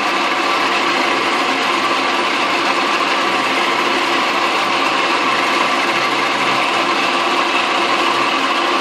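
Metal lathe running steadily with an end mill turning in its spindle, milling across a metal block clamped in a milling-attachment vise.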